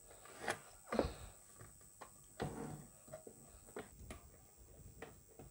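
Light, scattered clicks and knocks of small parts and tools being handled on a workbench, about six separate taps, the strongest about a second in.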